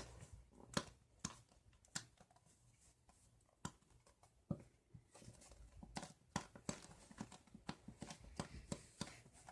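Faint, irregular clicks and taps of a plastic glue bottle being handled, squeezed and tapped over a bowl to get the last of the white glue out; the taps come more often in the second half.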